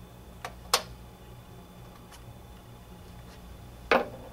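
Metal spark plug wrench clicking and tapping against the new spark plug of a Husqvarna 223L string trimmer as the plug is snugged tight. There are two sharp clicks in the first second, a couple of fainter ticks after that, and a louder clack near the end, all over a low steady hum.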